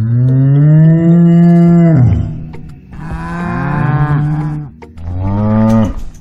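Cattle mooing: three long moos, the first the longest and loudest, each dropping in pitch at its end.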